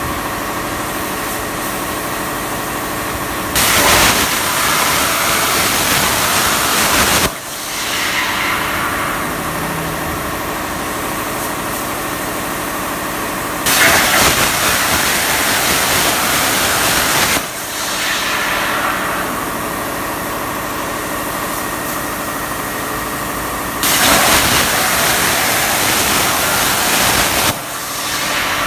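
CNC plasma cutting machine making three cuts of almost four seconds each. The plasma arc hisses loudly and stops abruptly at the end of each cut, followed by a fading hiss, all over a steady machine hum.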